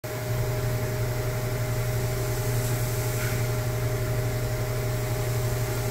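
Steady low hum of running machine-shop equipment, with two fainter steady higher tones over it.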